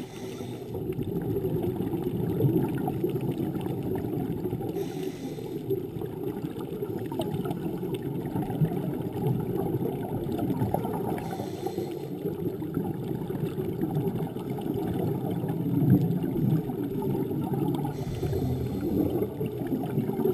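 Underwater sound heard through a GoPro housing: a steady muffled bubbling and gurgling of water, with a short hiss about every six seconds, the rhythm of a scuba diver breathing through a regulator.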